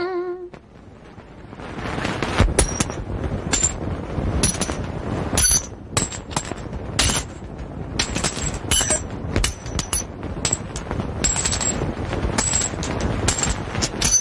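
A rapid, irregular series of sharp cracks or claps, about one to three a second, over a steady rushing background noise.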